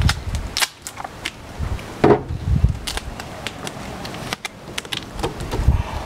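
Adhesive tape being pulled off the roll and pressed around a microwave oven, giving repeated sharp ripping cracks and crackles.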